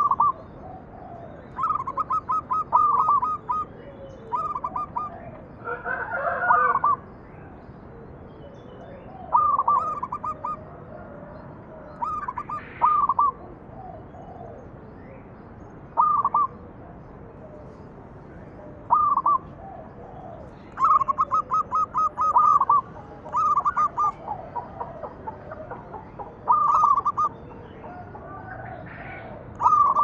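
Zebra dove (perkutut) singing: phrases of rapid staccato coos repeated every two to three seconds, some short and some longer runs of quick notes.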